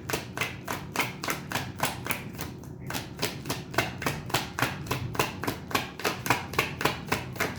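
Tarot cards being shuffled by hand: a quick, even run of card slaps, about five or six a second, with a brief pause about three seconds in.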